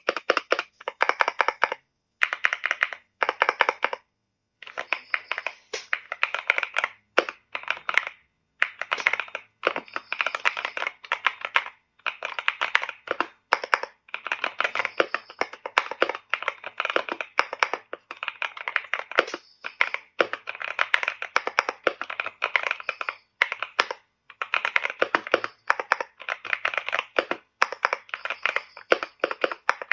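CIDOO V75 mechanical keyboard being typed on fast, a dense run of key clicks and clacks in bursts with short pauses.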